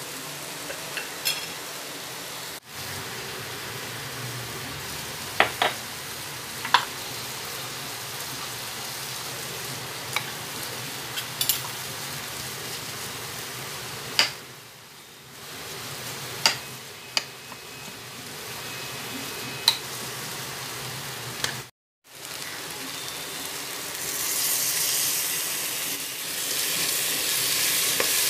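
Vegetables sizzling as they fry in a pressure-cooker pot, stirred with a ladle that gives sharp clicks against the cookware. The sound cuts out briefly once, and the sizzle gets louder near the end.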